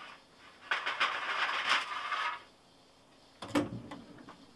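Clattering, scraping handling noise for about a second and a half, then a single knock about three and a half seconds in, followed by a few faint clicks.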